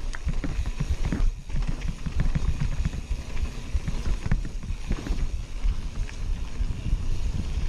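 Mountain bike riding fast over rough dirt trail: a dense low rumble of tyres and wind on the microphone, with many small knocks and rattles from the bike over bumps.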